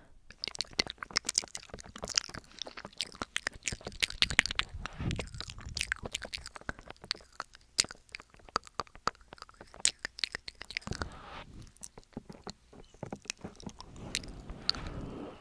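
Close-miked ASMR mouth sounds: a rapid, irregular run of tongue and lip clicks and smacks.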